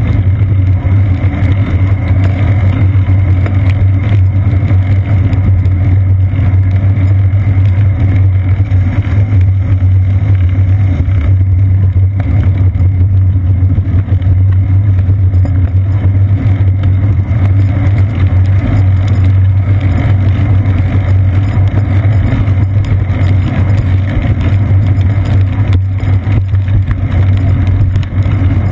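Steady loud low rumble of riding a bicycle on wet pavement, picked up by a seat-post-mounted action camera in its housing: road vibration, tyre noise and wind buffeting blend into one unbroken drone with no clear changes.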